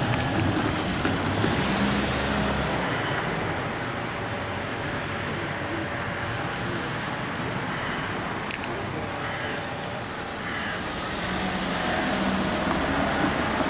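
Road traffic: cars running past, their engine hum rising near the start and again near the end, with a brief high tick about eight and a half seconds in.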